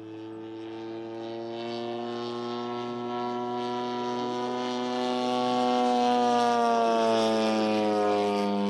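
Engine and propeller of a large-scale RC Hawker Sea Fury warbird model in flight, growing louder as it approaches and passing overhead, its pitch falling as it goes by near the end.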